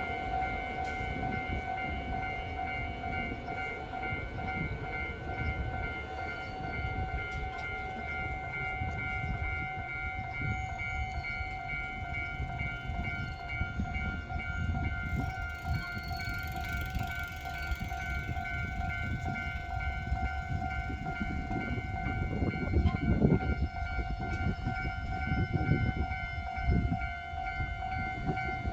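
Level-crossing warning bell ringing steadily as one unbroken electronic tone, over the low rumble of rail traffic, with a few heavier knocks in the last third.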